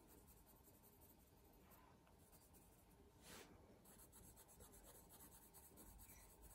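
Near silence with faint scratching of a coloured pencil shading lightly on drawing paper, one stroke a little louder about halfway through.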